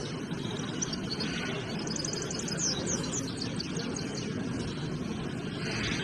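Small caged songbirds singing: a fast, high trill about two seconds in, followed by a few quick sweeping notes, over the steady low murmur of a crowded hall.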